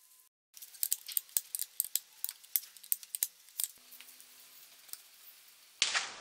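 Irregular sharp metallic clicks and clinks of hand tools working on the fan fixings in the engine bay, a few tenths of a second apart. Near the end a louder clatter starts suddenly.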